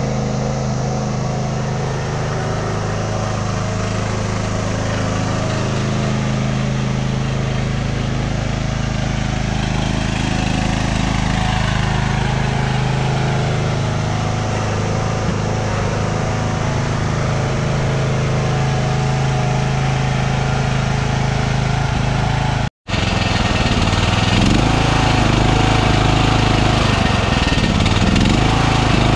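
Cub Cadet LT1018 riding lawn mower's engine running steadily as the tractor drives along. After a brief cut about two-thirds of the way through, the same engine is heard up close, a little louder, with its pitch wavering slightly.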